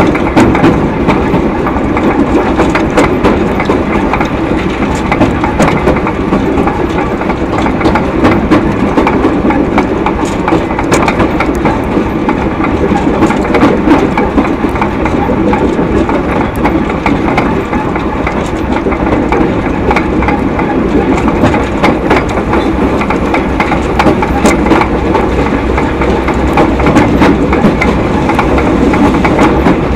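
Narrow-gauge train running along the line: a steady, loud rumble of carriage wheels on the rails, with frequent small clicks and rattles.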